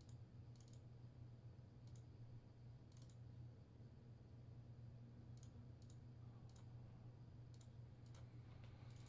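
Faint, scattered clicks of a computer mouse, about a dozen at irregular intervals, over a low steady hum.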